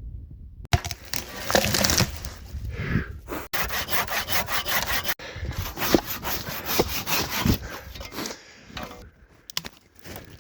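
Wood being sawn by hand: repeated rasping saw strokes, breaking off abruptly a few times.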